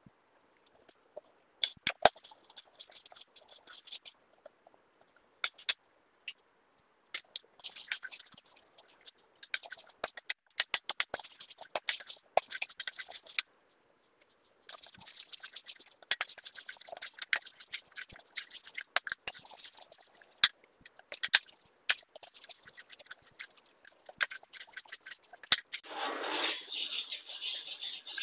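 Steel pot of candle wax heating on a gas stove: irregular crackles and scratchy clicks as the wax melts. Near the end comes a louder scraping for about two seconds as a metal spoon stirs the half-melted wax against the pot.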